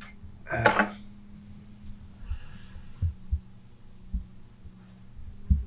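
Potter's wheel running with a steady low hum while hands shape the rim of a large clay pot, with a few soft low thumps in the second half. A short rustling noise comes about half a second in.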